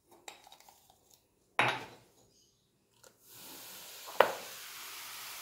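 Spoon clinking lightly against a ceramic bowl, with a brief knock, then, from about three seconds in, a steady fizzing hiss as baking soda reacts with white vinegar and foams up. A sharp clink of the spoon on the bowl comes about four seconds in.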